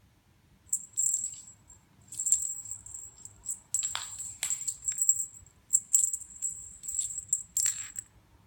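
A cat toy giving off high-pitched rattling chirps in a string of short irregular bursts, with a few sharper clicks among them.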